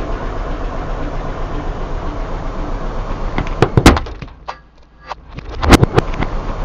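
A car tyre rolls over a plastic tub of Gatsby hair wax and cracks it, giving two sharp crunching cracks about two seconds apart over a steady background hum.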